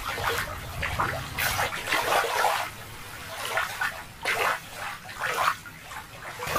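Shallow water sloshing and splashing in irregular surges.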